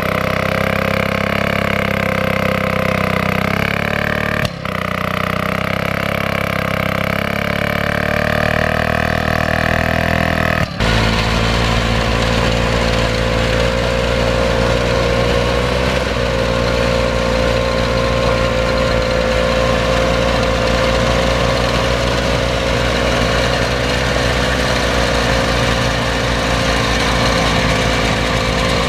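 Small engines of vintage walk-behind tillers running steadily while they churn up soil. The engine note changes abruptly twice, about 4.5 and 11 seconds in, then holds steady.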